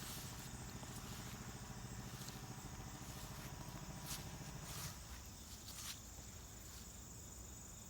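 Faint outdoor ambience: a steady high insect trill, a low hum like a distant motor that fades out about five seconds in, and a few scattered light crunches and clicks like footsteps on leaf litter.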